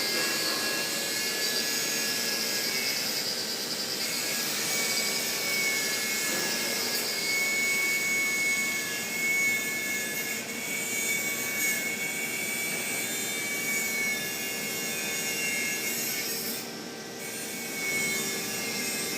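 Electric arc welding a bead in the vertical position: a steady hiss of the arc burning that dips briefly near the end.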